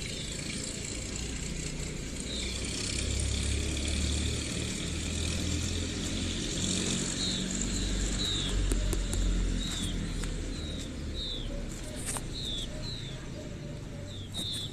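Background noise: a low rumble that swells for several seconds and then eases, with short, high, falling chirps repeating irregularly through it and a few faint clicks.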